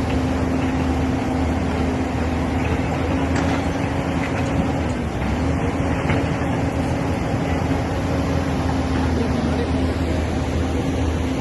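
Engine of heavy road-works machinery running steadily, its pitch dipping briefly twice as the load changes.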